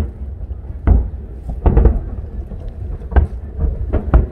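Aerial fireworks shells bursting: a fast, uneven run of deep booms and cracks, about ten in four seconds, several coming in quick clusters.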